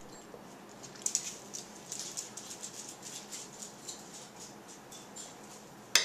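A dog's jaws clicking, its teeth snapping together in a quick, irregular run of sharp little clicks, with one louder click near the end.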